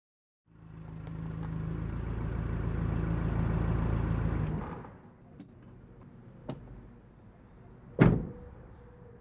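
Car pulling up with its engine running, then the engine stops about five seconds in. A few small clicks follow, then a car door slams shut about eight seconds in.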